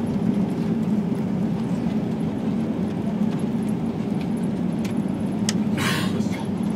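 Steady rumble of an Airbus A320 heard from the cabin during the landing roll-out: engine noise mixed with the wheels running on the runway, with a faint steady hum. A few light clicks and a short noisy burst come about five to six seconds in.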